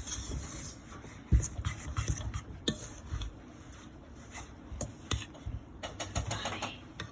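Kitchen utensils knocking and scraping against a pot or bowl in irregular clinks and rubs, the loudest knock about a second in.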